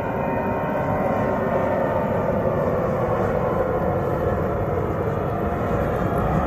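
Jet airliner engines at takeoff power during the takeoff roll and lift-off: a steady, loud rumble, with high whining tones that fade out in the first second or so.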